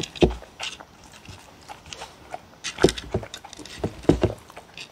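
Two dogs eating from a wooden bowl close to the microphone: clicking and chewing as muzzles and teeth work in the bowl, with a few louder knocks of the bowl on the wooden table, about a third of a second in, near three seconds and around four seconds.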